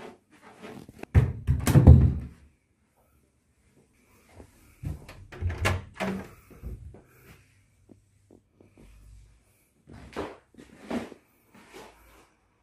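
A wooden wardrobe door being swung shut, with a cluster of knocks and thuds about one to two seconds in. Further knocks follow around the middle and again near the end.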